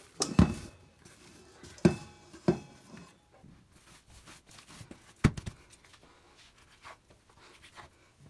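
Stainless steel mixing bowl knocking against a granite countertop as bread dough is tipped out of it: a few sharp knocks in the first five seconds or so. Between them, quieter sounds of the soft dough being pressed and cut on the counter.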